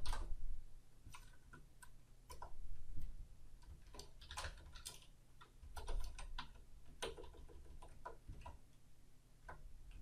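Computer keyboard keys clicking faintly in short, irregular runs of typing, over a low steady hum.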